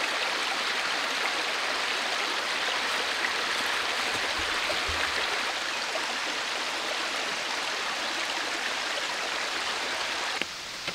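Steady rush of a shallow forest stream running over stones, cutting off suddenly near the end, where a short knock follows.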